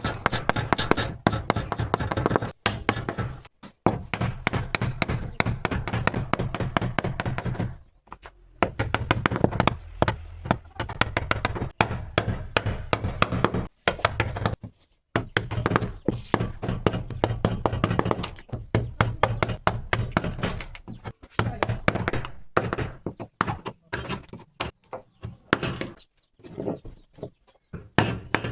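Rapid, irregular knocking and tapping on wood, several strikes a second, stopping briefly a few times.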